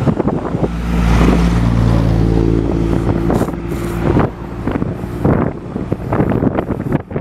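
Wind buffeting the microphone while riding on a road, with a motor vehicle's engine humming steadily from about one second in and cutting off at about four seconds.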